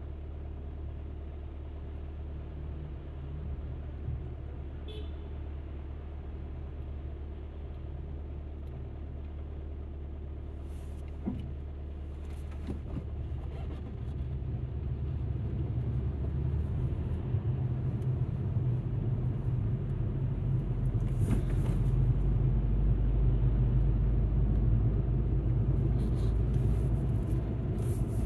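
Alfa Romeo MiTo driving: a steady low engine and road hum that grows louder and a little higher from about halfway through as the car gathers speed, with a few brief hissing swishes.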